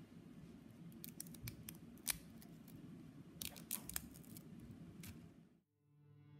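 Crisp fried murukku cracking and snapping as it is broken apart by hand: dry, brittle cracks in two clusters, about a second in and again about three and a half seconds in.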